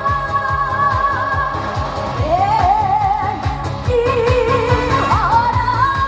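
A woman sings a Korean gugak-style pop song over a backing track with a steady beat, holding long notes with vibrato.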